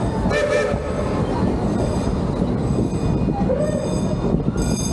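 Narrow-gauge excursion train's passenger car rolling along with a steady low rumble, its wheels squealing high on the rails in several short stretches from about two seconds in.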